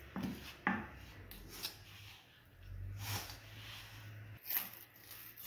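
Hands mixing wheat flour with a little water in a glass bowl to knead dough. Faint rustling, with a few short knocks scattered through it.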